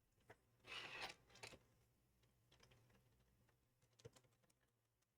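Drip coffee maker brewing, barely audible: a brief hiss about a second in and a few faint scattered clicks, otherwise near silence.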